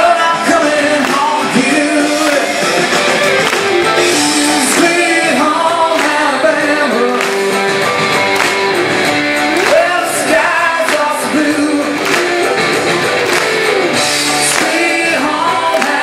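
A man singing into a handheld microphone over a band accompaniment, amplified through a theatre's sound system.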